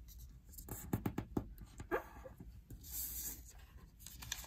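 Sheet of origami colour paper being creased and handled on a tabletop: soft quick taps and rubs about a second in, a brief squeak near the middle, and a paper rustle around three seconds in as the fold is opened out.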